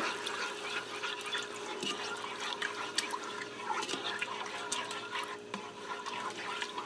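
Cream sauce being stirred with a spoon in a pressure cooker's inner pot on sauté high: liquid sloshing with small scattered clicks and scrapes of the spoon against the pot, over a faint steady hum.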